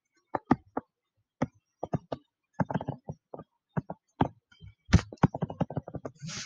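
Stylus tapping and scratching on a screen while drawing: a run of irregular, sharp taps and clicks, coming thicker in the second half, with a short scratchy rasp near the end.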